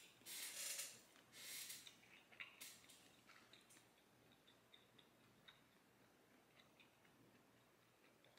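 Faint eating sounds: two short crinkly rustles in the first two seconds as a pot sticker is dipped in sauce in a plastic takeout container, then a few soft mouth clicks while chewing, dying away to near silence.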